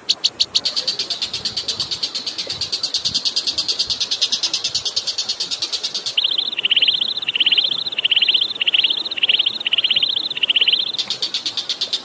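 Recorded songbird calls of the kind used to train competition birds: a fast, evenly pulsed high trill, then about seven falling high notes in a row, then the fast trill again near the end. A faint hiss of running water lies underneath.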